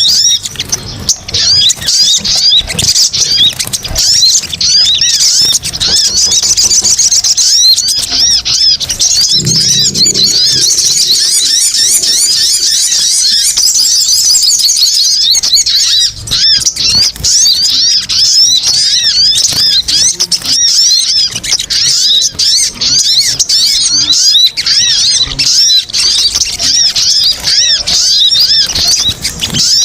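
Lure recording of sogon (sogok ontong) birds calling: a dense, loud, continuous chattering of many rapid high-pitched chirps overlapping one another.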